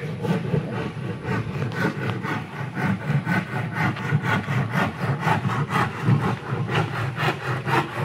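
Hand saw cutting through a wooden board in quick, regular back-and-forth strokes, about four a second.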